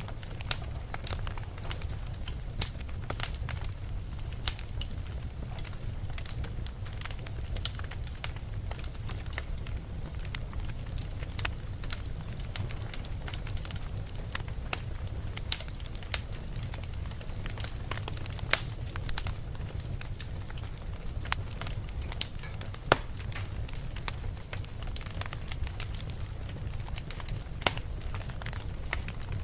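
Wood fire burning in a fireplace: a steady low rumble of flames with irregular crackles and occasional louder pops.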